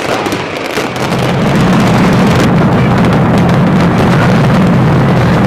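Mascletà firecrackers going off in rapid succession: separate sharp bangs for the first second or so, then from about a second and a half in they merge into a dense, continuous, loud barrage.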